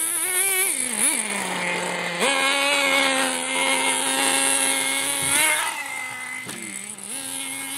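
Team Associated SC10GT's small nitro engine running at high revs, a steady buzzing note whose pitch drops for about a second twice, about a second in and again near the end, then climbs back as the throttle comes on again.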